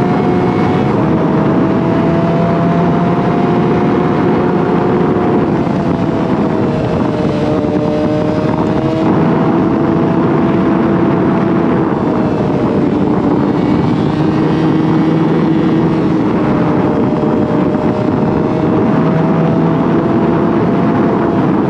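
Yamaha R6 sport bike's inline-four engine running at a steady cruise, its pitch drifting gently up and down with no sharp revs, over a steady rush of wind noise.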